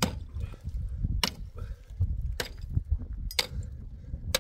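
Sharp knocks repeating evenly, about one a second, over a low rumble.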